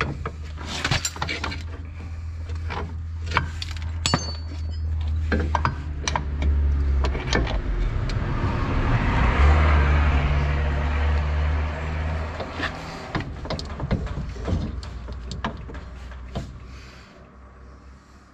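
A motor vehicle's engine running with a steady low hum, its noise swelling to a peak about nine to ten seconds in and fading afterwards, over scattered clicks and knocks of metal parts and tools being handled.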